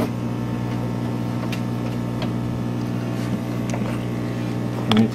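Steady low electric hum of aquarium pump equipment, even in level throughout, with a few faint clicks on top.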